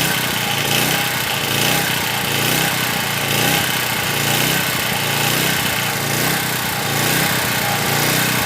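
A small generator engine running continuously, its note swelling and fading in a regular pulse about one and a half times a second.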